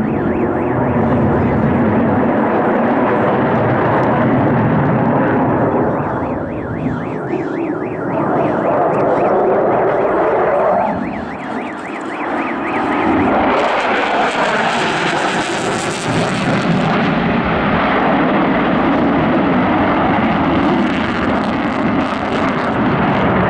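Su-27 fighter jets' twin turbofan engines in display flight: a loud, continuous rushing jet noise. It swells and fades as the aircraft pass, with a wavering phasing sweep midway and a brighter hissing surge a little past the middle.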